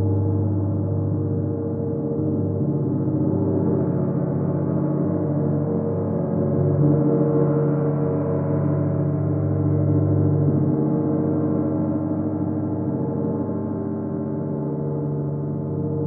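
31-inch Chinese white gong played with a padded mallet, giving a dense, sustained ring of many tones. It swells a little around the middle with no separate strikes standing out.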